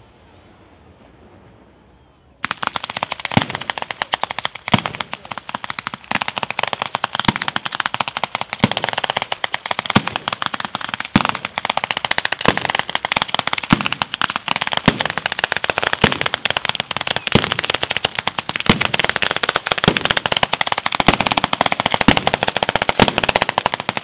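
Ground fireworks barrage: a dense, rapid crackle of firecracker bangs starts suddenly about two seconds in and runs on without a break, with louder single bangs standing out every second or so. Before it, only a faint hiss.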